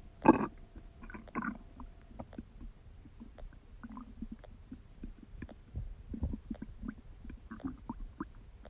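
Human stomach gurgling during digestion: one loud gurgle shortly after the start, a couple more about a second later, then irregular small pops and bubbling gurgles.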